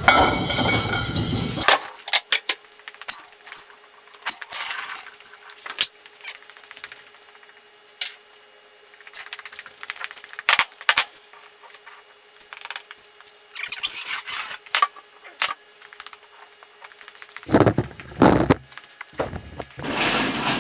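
Metal tools and moving gear being handled, with scattered clinks and clanks, as a lathe is readied to come off its rollers onto machine skates. Louder scraping and shuffling noise comes in the first couple of seconds and again near the end, with a faint steady hum in between.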